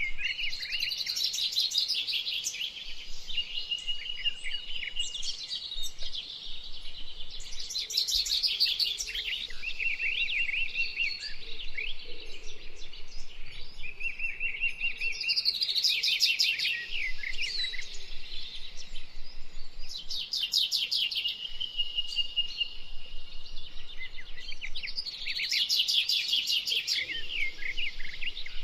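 Songbird singing: phrases of rapid trills and chattering notes mixed with short held whistles, repeated every few seconds.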